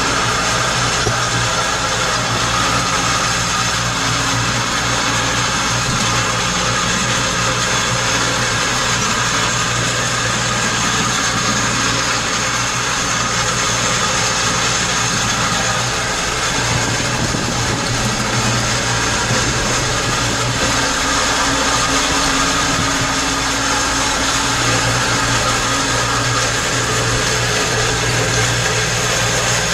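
John Deere 6310 tractor's diesel engine running steadily under load, pulling a 6 m Scan roller, heard from inside the cab as a constant low drone.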